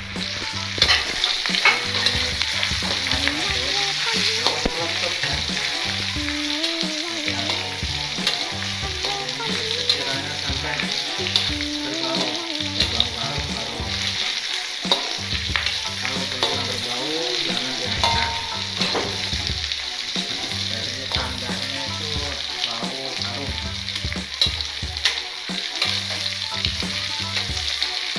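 Red chillies, bird's-eye chillies, shallots, garlic and tomato frying in hot oil in a wok: a steady sizzle with many small crackling pops.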